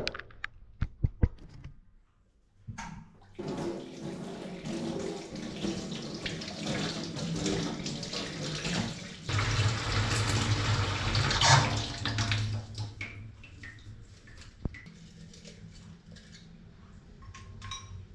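Kitchen tap running into a stainless steel sink while pandan leaves are rinsed under it, starting about three seconds in and tapering off after about twelve seconds. A few sharp clicks come before the water.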